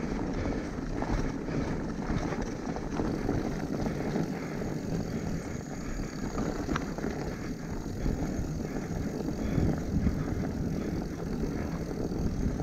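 Enduro mountain bike running fast down a dirt trail: a steady rush of wind on the microphone, with knobby tyres rolling over dirt and the bike rattling over bumps. There is a sharp click about seven seconds in.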